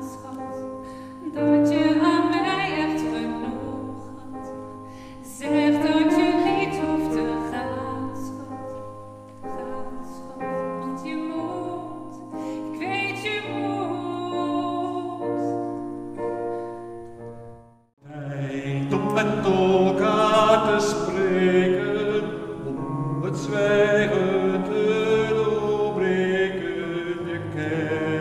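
Live singing with piano accompaniment. A voice sings over held piano chords, breaks off briefly about eighteen seconds in, then resumes fuller with the piano.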